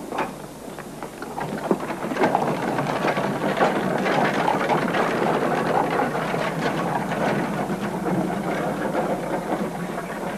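Horse-drawn carriage rolling on gravel: a steady crunching clatter of wheels on stones that builds over the first two seconds and eases off near the end.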